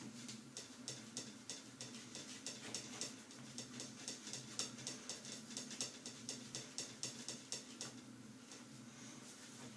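Towel wiping a phone case in quick, short rubbing strokes, several a second, that stop about eight seconds in, over a faint steady low hum.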